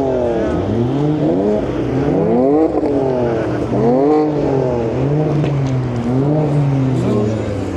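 High-performance car engine revved hard at a standstill: a few quick rising and falling blips, then held at high revs for a few seconds before dropping back near the end.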